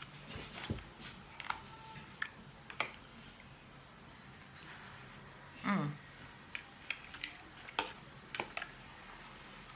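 Quiet eating sounds of a salad meal: scattered light clicks of a fork against the plate and chewing mouth sounds. A brief, louder pitched sound comes a little before six seconds in.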